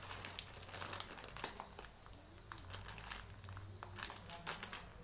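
Plastic packet of besan (gram flour) crinkling as it is squeezed and tipped to pour the flour into a bowl: a run of irregular crackles.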